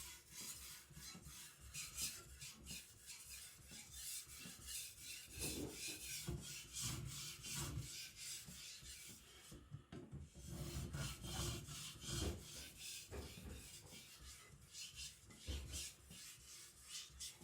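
Steel chopper blade being stroked across a Japanese whetstone in many quick, light scraping strokes, with a brief pause about ten seconds in: a micro bevel being set at about 20 degrees, pressed by only the weight of the blade.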